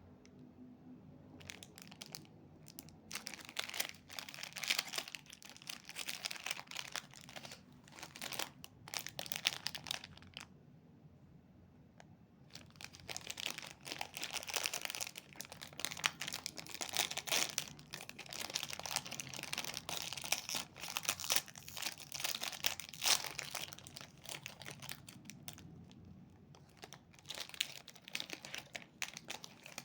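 Snack packaging crinkling and tearing as it is handled and opened, in spells of dense crackling with short pauses.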